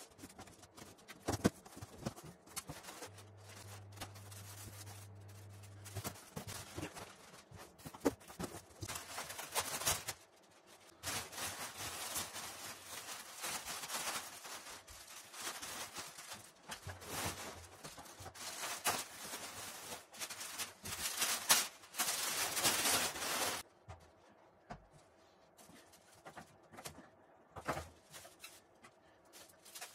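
Handling noise from unpacking a drum: light knocks and scrapes on a cardboard box, then plastic wrapping rustling and crinkling as the drum is pulled out and unwrapped. The rustling is loudest just before it stops abruptly about three-quarters of the way through, and a few light knocks follow.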